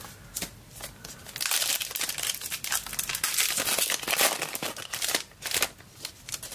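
Foil trading card pack wrapper crinkling and crackling as it is torn open and handled. The crinkling is densest through the middle and eases off near the end.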